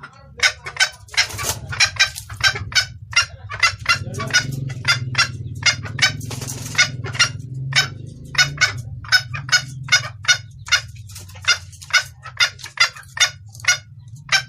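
Jungle fowl hen clucking in a fast, even series of short sharp calls, about three a second, the call a hen gives to draw males. A steady low hum runs underneath.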